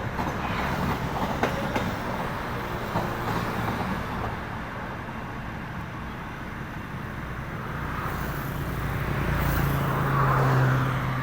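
Diesel-electric locomotive running past: wheels click over rail joints in the first couple of seconds, then a steady engine drone that grows louder toward the end.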